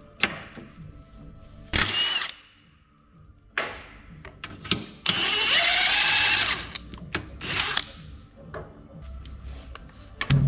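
Hand-held power tool whirring in several short bursts, the longest about a second and a half, with a motor whine that rises and falls. It is running bolts out of the underside of a car's transmission, ahead of dropping the transmission pan.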